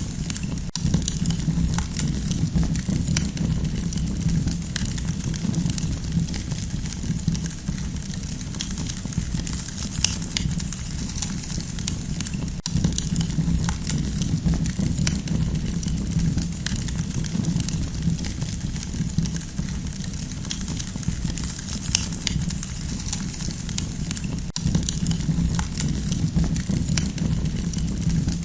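Campfire burning, with a steady low rumble of flames under frequent small crackles and pops.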